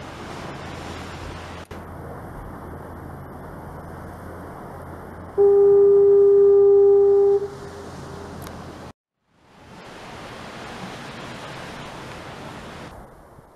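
One long, steady horn blast of about two seconds, a single tone with overtones, over steady wind noise and a low rumble. The sound drops out briefly about nine seconds in.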